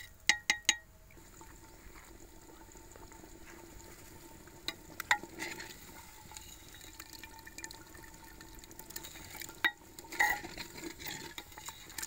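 A steel ladle stirring beef curry as it fries in ghee, knocking against the pot: three sharp clinks just after the start, more around five seconds in and again near ten seconds. Under the clinks the curry sizzles steadily while its remaining water cooks off at the bhuna stage.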